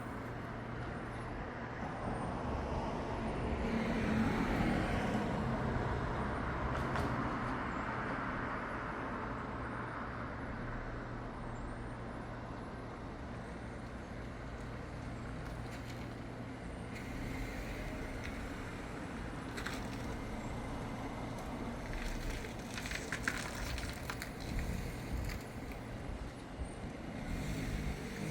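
Outdoor traffic noise: a vehicle passes, swelling to a peak about five seconds in, over a steady low hum, with scattered faint clicks in the second half.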